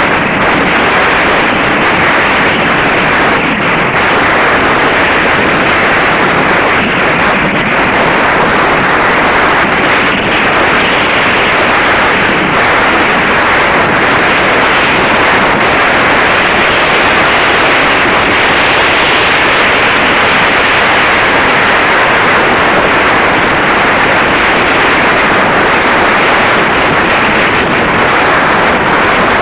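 Wind buffeting the microphone: a loud, steady rushing noise that covers everything else.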